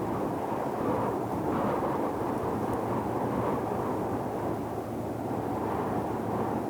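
Deep ocean white noise: a steady, muffled, low rumbling hiss with only slight rises and falls in level, used as a sleep sound.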